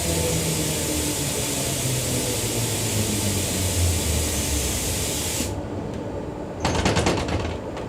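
Inside a Queensland Rail electric multiple unit train carriage: steady hiss and low motor hum, with the hiss cutting off suddenly about five and a half seconds in, followed by a brief burst of rattling clatter.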